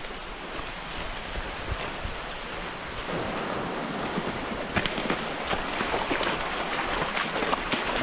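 Steady rushing noise on an action camera's microphone, of wind and moving water. From a little past halfway comes a quick, irregular run of footfalls, several a second.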